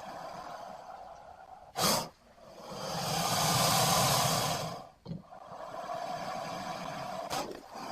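Breathing and exhaling sound effects for a cartoon creature: a short sharp breath about two seconds in, then a long breathy exhale that swells and fades, followed by a quieter stretch of breathing.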